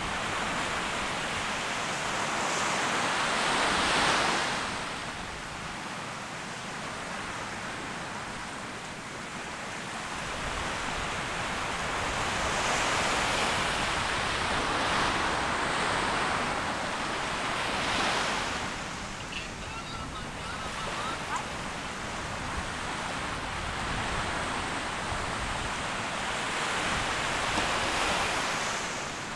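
Gentle surf breaking on a sandy shore, each wave swelling and washing out over a few seconds.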